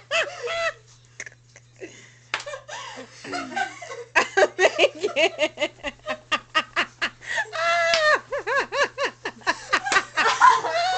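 Several young women laughing hard, rapid ha-ha giggling that starts about two seconds in and grows louder, over a steady low hum.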